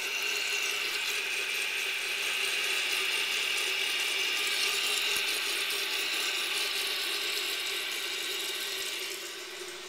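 1984 Kohler Highline toilet tank refilling after a flush: the fill valve runs with a steady hiss and whine, fading out near the end as it shuts off.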